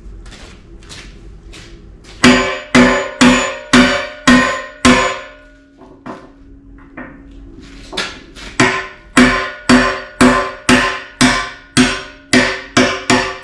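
Steel hammer blows driving a retaining pin into an excavator bucket tooth, each strike ringing with a metallic pitch. A run of about six hard strikes is followed by a short lull with a few lighter taps, then steady blows at about two a second.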